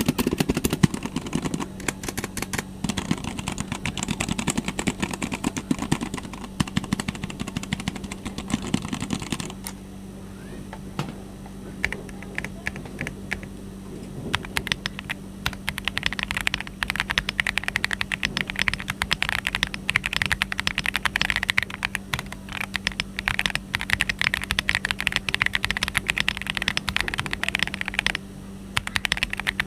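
Royal Kludge R75 mechanical keyboard with Phantom Yellow switches being typed on: fast continuous typing, thinning to scattered single keystrokes about ten seconds in, then fast typing again with a brief pause near the end.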